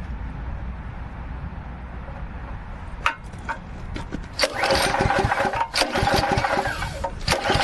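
Forest Master FM6DD wood chipper's 6 hp petrol engine starting. A low rumble and a few clicks come first; about four and a half seconds in the engine catches and runs loudly with a steady whine, dipping briefly once.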